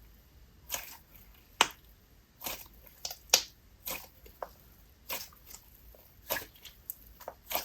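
Thick, glossy slime being worked by hand, giving off about a dozen sharp bubble pops at an uneven pace.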